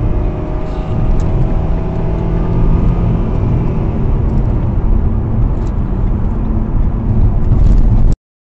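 Car driving: steady engine and road noise, with the engine note rising slowly in the first few seconds, then cutting off suddenly near the end.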